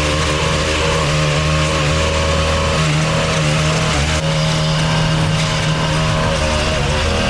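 A hedge trimmer's motor running as it cuts into an overgrown bush. About four seconds in, a string trimmer takes over, edging along a sidewalk.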